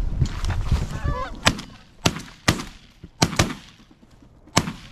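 Goose honks, then a volley of six shotgun shots fired at the geese, unevenly spaced, two of them in quick succession.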